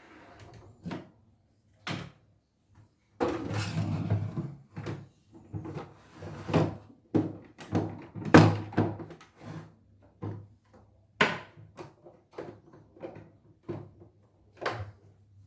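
Irregular knocks and clunks from a CNY E900 embroidery machine being handled, some short and some dragging on for about a second, over a faint low hum.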